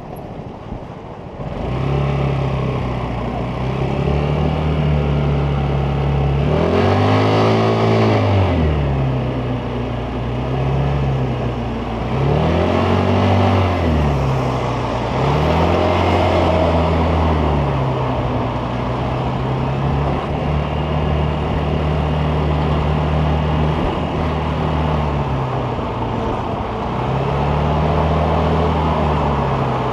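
Vespa GTS 300 scooter's single-cylinder four-stroke engine pulling the scooter along, its pitch rising and falling as the rider accelerates and eases off. It is quieter for the first second or so, then climbs, with the sharpest revs about seven and thirteen seconds in.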